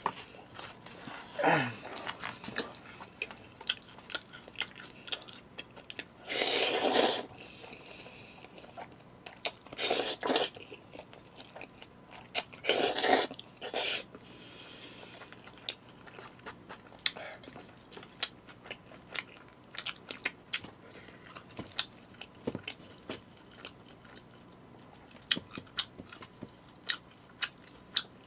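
Close-miked eating of jjajangmyeon noodles with chopsticks: wet chewing and small mouth clicks throughout, and three louder slurps of the noodles spread through the middle.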